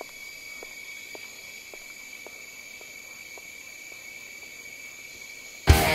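Steady chirring of crickets with faint footsteps, about two a second, fading away as someone walks off. Loud rock music cuts in near the end.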